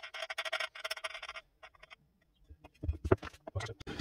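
A quick run of fine metallic clicks as a wing nut is spun off its bolt inside a wooden rifle stock, then a few dull wooden knocks near the end as the walnut stock and hamster block are set down on the workbench.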